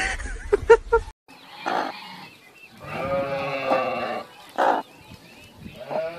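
A hen on her straw nest making drawn-out, wavering calls: a short one, then one of about a second and a half, then more short ones. The first second holds a few short, sharp sounds before a sudden cut.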